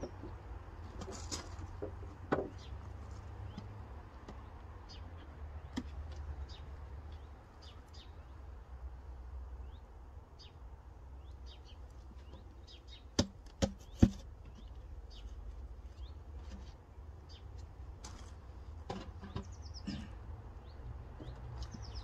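Small birds chirping on and off over a low steady rumble. About thirteen seconds in come three sharp wooden knocks, about half a second apart, as a wooden hive board is handled.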